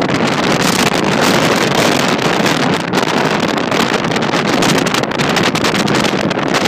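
Loud, steady wind rushing over the microphone of a moving car, mixed with road noise.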